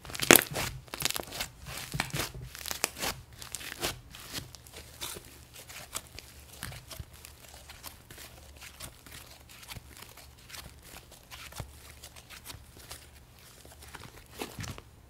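Thick pale yellow slime being stretched, folded and pressed by hand, giving a run of sticky crackles and tearing snaps as it pulls apart. The loudest snap comes right at the start, and the crackles grow softer and sparser later on.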